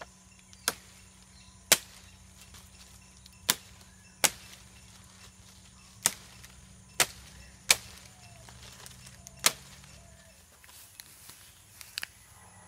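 A knife chopping leaflets off a green palm frond: about eight sharp cuts at uneven intervals, then a few fainter ticks near the end.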